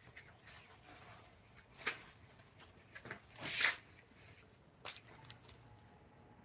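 A handful of irregular short scrapes and knocks, the loudest a longer scrape about three and a half seconds in.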